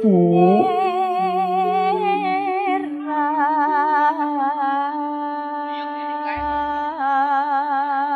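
Slow background music: long held notes with a steady vibrato, stepping from one pitch to the next in a slow melody. A short low thud about six seconds in.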